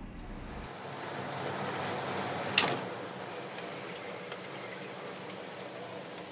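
Room air conditioner running with a steady rush of air, then a sharp click about two and a half seconds in as it is switched off, after which the noise drops a little and carries on.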